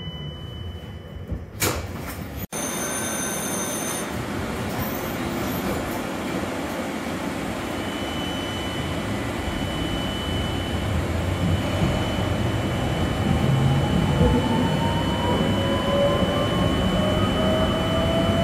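Tatra tram running on its track, heard from inside the car: a steady rumble and rattle that grows louder, with a rising whine over the last several seconds as it picks up speed. In the first two seconds, before the running noise, it is quieter, with a couple of knocks.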